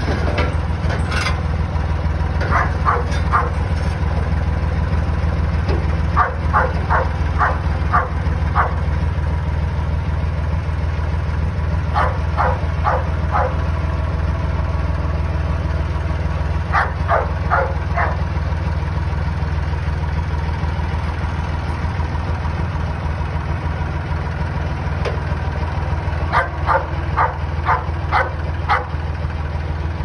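Farm tractor engine running steadily while its front loader lifts and carries a disc implement. A dog barks in several short runs of three to seven barks spread through.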